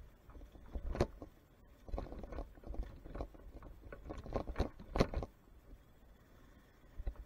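Irregular knocks and rattles as a Yamaha Serow 225 dirt bike jolts over a rough forest dirt track, with a low rumble; the loudest knocks come about a second in and about five seconds in, with a busy cluster between, then it settles.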